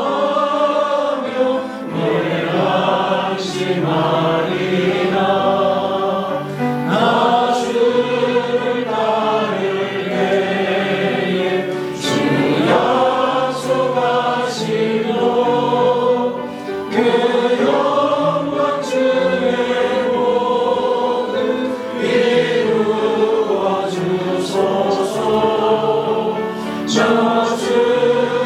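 Church congregation singing a hymn together, many voices in steady sung phrases.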